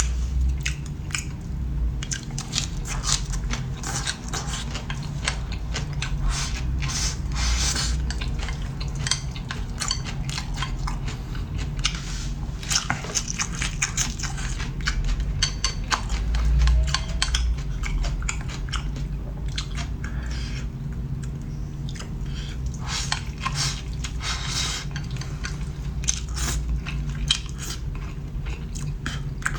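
A person chewing and biting food close to the microphone, with many short irregular clicks throughout, over a steady low hum.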